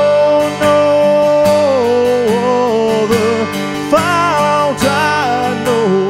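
A man singing a slow hymn melody over his own strummed acoustic guitar, holding a long note at the start before moving on through the next line.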